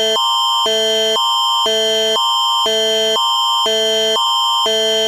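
Canadian Alerting Attention Signal, the alarm that marks the start of an emergency alert broadcast. Two three-note electronic chords alternate about twice a second, a higher one and a lower one, over a steady high tone.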